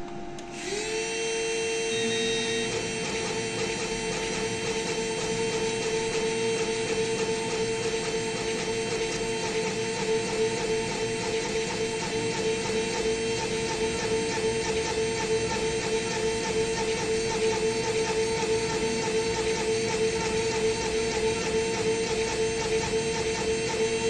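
A small CNC machine's spindle winds up with a short rising whine about a second in, then runs steadily with a constant whine while cutting and drilling kuka (coquilla nut).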